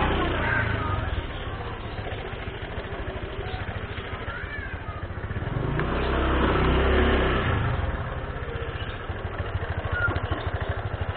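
Motorcycle engine running at low speed, picking up briefly at the start and again about six to seven seconds in before easing back.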